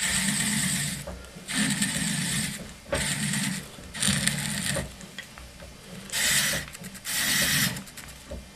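Turning tool cutting a hazel blank on a treadle lathe: six short hissing cuts, each under a second, with a low rumble from the lathe under each and a pause about midway.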